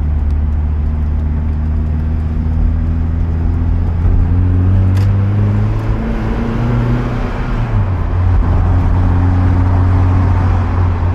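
Mazda MX-5's four-cylinder engine running under way, heard from inside the cabin along with road noise. Its pitch steps up and down in the middle, then holds steady. It runs smoothly with the new clutch and lightened flywheel.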